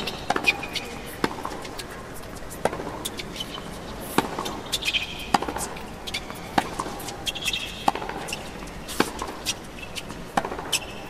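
Tennis rally on a hard court: sharp pops of rackets striking the ball and the ball bouncing, roughly once a second, with short squeaks of shoes on the court between hits.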